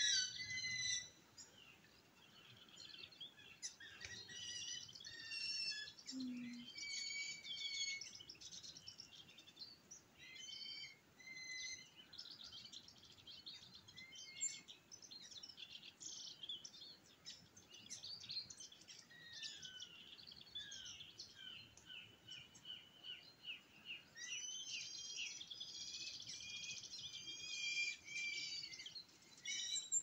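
Several small birds calling and singing in a dawn chorus, a busy mix of chirps and trills. Around twenty seconds in comes a run of short falling notes, and near the end the song grows denser.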